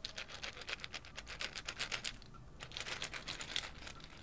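Long fingernails tapping quickly on a unicorn-shaped toy, a dense run of sharp clicks with a brief pause about halfway through.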